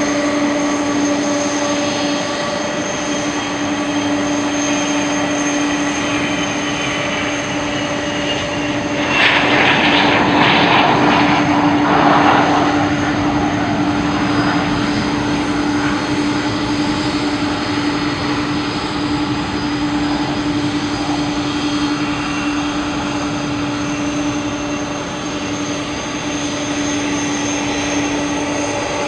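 Boeing 747-400 taxiing, its four turbofan engines at taxi idle: a steady jet whine over a constant hum. A louder rush of jet noise swells for a few seconds about nine seconds in, then settles back.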